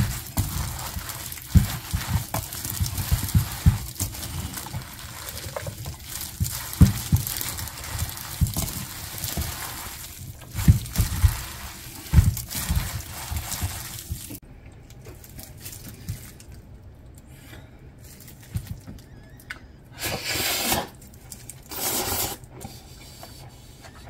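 Gloved hand mixing and tossing thin noodles with chopped vegetables and chili sauce in a stainless steel bowl: wet squelching with many dull thumps. It stops suddenly about fourteen seconds in, and two short rustling bursts follow near the end.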